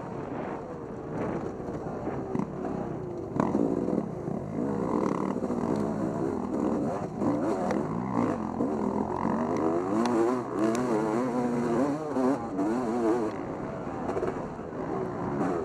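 Motorcycle engine being ridden hard, its pitch rising and falling constantly as the throttle is worked on and off, with a sharp knock about three seconds in.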